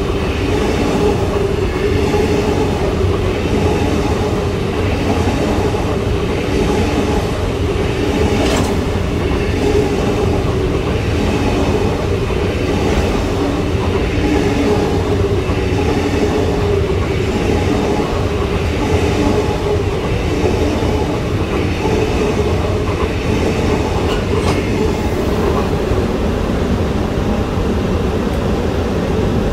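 Long freight train of covered wagons rolling past close by: a steady loud rumble of steel wheels on rail, with a clickety-clack from the wheelsets over the rail joints about once a second.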